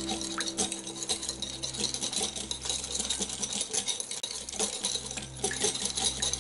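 Metal wire whisk beating a thin sauce in a glass bowl: fast, continuous clicking and rattling of the wires against the glass.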